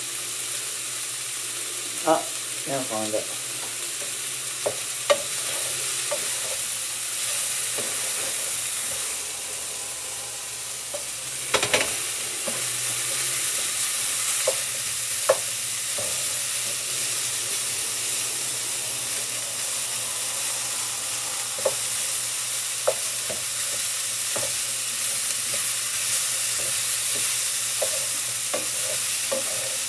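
Food frying and sizzling in a pan, with scattered clicks and scrapes of a utensil stirring it, under a low steady hum. The loudest knock comes about twelve seconds in.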